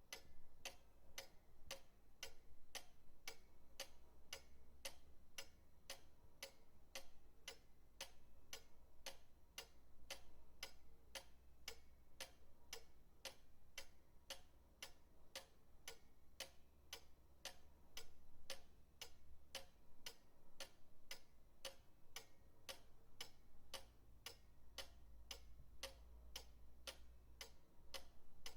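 Pendulum clock ticking steadily and evenly, about two ticks a second.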